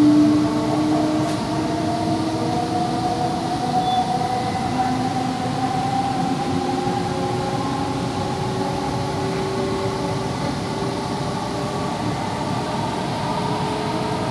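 Kolkata East-West Metro train running on elevated track, heard inside the car: a steady rumble of wheels on rail with an electric motor whine that slowly rises in pitch.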